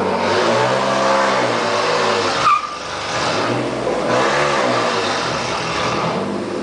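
Dodge 1500 pickup with exhaust stacks revved hard twice, the engine pitch rising and falling each time, with a brief sharp chirp as the first rev drops off. The revving is the truck being run to smoke its clutch.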